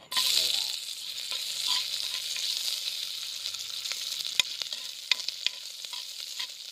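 Ginger strips hitting hot oil in a pot and frying, the sizzle starting suddenly as they go in. A spatula clicks and scrapes against the pot as it stirs them, several sharp clicks about two-thirds of the way through.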